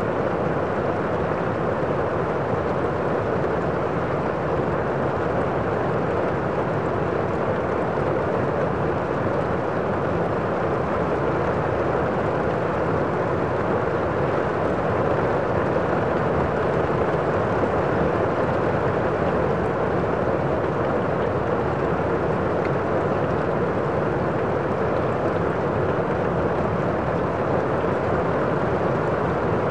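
A steady, unchanging rushing noise, strongest in the low and middle range, with no distinct events standing out.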